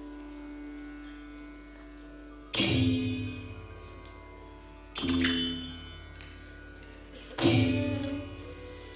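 Three slow, evenly spaced strokes about two and a half seconds apart, each a deep barrel-drum stroke struck together with a ringing clash of small hand cymbals, over a steady held note.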